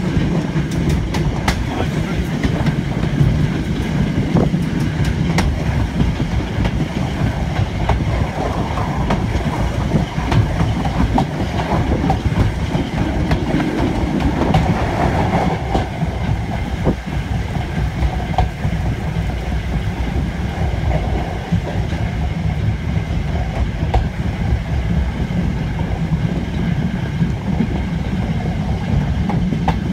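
LMS brake van rolling along the track: a steady rumble of wheels on rail, with irregular clicks and knocks over the rail joints.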